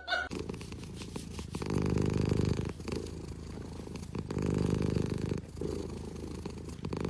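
Domestic cat purring, a low, fast-pulsing rumble that swells twice, for about a second each time.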